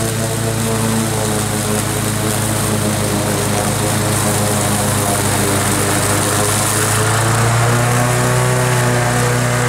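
Wolf Garten Cart ride-on mower's small petrol engine running steadily under load as it cuts tall, wet grass. It grows slightly louder and its pitch shifts a little about seven to eight seconds in.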